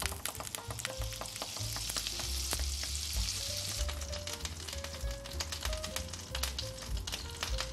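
Butter sizzling in hot oil in a frying pan: a dense hiss for the first few seconds that thins out into scattered pops and crackles as the butter melts and foams. Faint background music with a low beat underneath.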